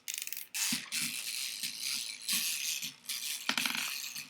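Wind-up toy chicken running after being wound, its clockwork mechanism giving a continuous whirring rattle with small knocks as it works the jelly beans inside toward laying one.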